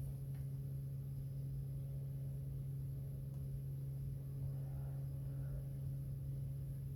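A steady low hum that holds one pitch, with a faint high hiss above it.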